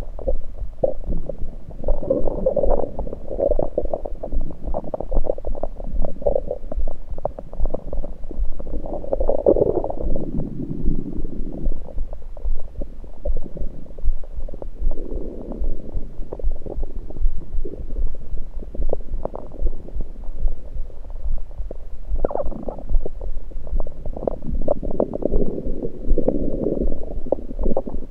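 Human stomach gurgles heard through an electronic stethoscope pressed to the belly: irregular bouts of gurgling and rumbling from liquid and air moving through the gut. The bouts come and go over a constant low rumble, with the longest stretches around ten seconds in and again near the end.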